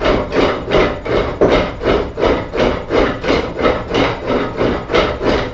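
Hand pump drill boring a hole in wood: each push on the crossbar spins the flywheel and bit, and the bit rasps into the wood in a steady rhythm of about three strokes a second.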